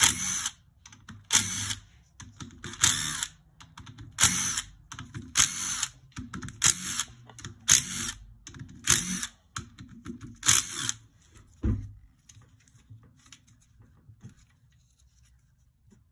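Handheld power tool running in about nine short bursts, roughly one every second and a half, backing out the cam cap bolts on a Yamaha YZ250F cylinder head. A dull knock follows about three-quarters of the way through, then faint handling.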